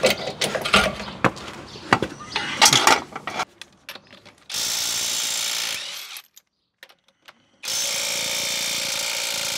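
Clanks and knocks of hand tools on metal, then a power tool runs steadily twice: about a second and a half, a short silent break, then about two seconds more.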